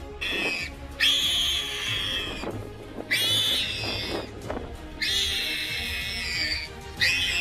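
Warthog giving a string of long, high-pitched distress squeals while a leopard holds it down and bites it. Soft background music runs underneath.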